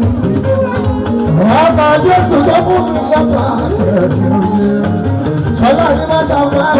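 Live band music: a singer over electric guitars, saxophones and hand percussion with a shaker.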